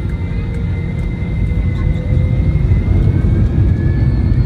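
Airbus A321 jet engines heard from inside the cabin: a heavy rumble with steady whining tones. About two seconds in, the tones bend slightly upward and the rumble grows louder as the engines spool up for takeoff.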